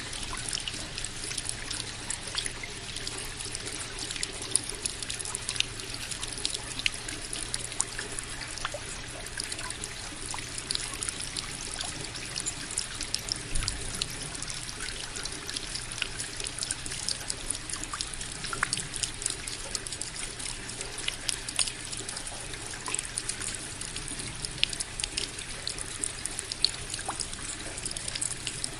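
Indoor tabletop waterfall fountain with a water wheel and floating balls: water trickling and splashing steadily, with many small irregular splashes and a faint steady low hum underneath.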